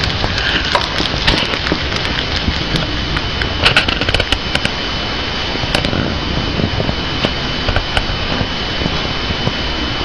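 A hamster chewing a piece of bok choy up close, with crisp crunching clicks that come thick in the first half and grow sparser later, over a steady hiss.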